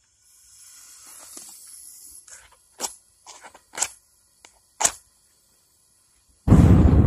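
A faint hiss, then three sharp clicks about a second apart, then the forge burner lights with a sudden, loud, steady rush near the end.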